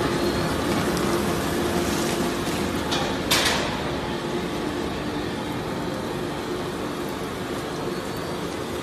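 Industrial shredding line running: a steady mechanical rumble and hum from the shredder and its conveyor, with one loud sharp impact about three seconds in.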